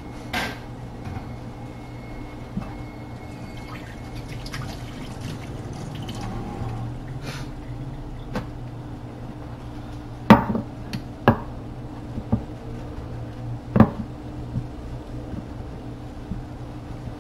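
Wet kitchen handling sounds as raw chicken and its packaging are worked over a bowl, over a steady low hum. Several sharp knocks stand out, the loudest about ten, eleven and fourteen seconds in.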